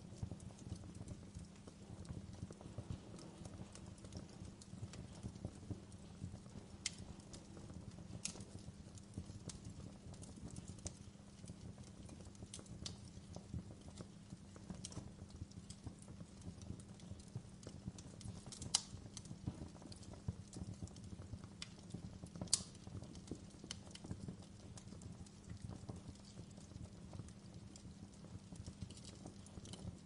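Wood fire burning in an open fireplace: the logs crackle constantly with small clicks, with a few sharper pops standing out, over a low steady rumble.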